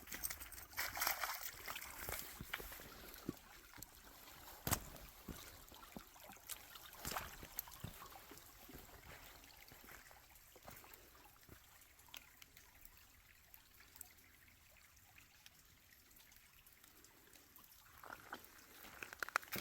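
Faint trickle of a shallow creek, with scattered sharp taps and ticks over it.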